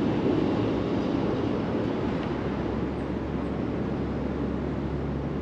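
Steady rumble of road traffic on a nearby highway, an even low noise with a faint hum underneath.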